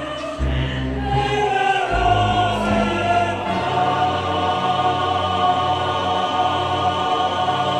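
Dark intro music: choir-like voices holding long notes over low bass notes that change every second or two.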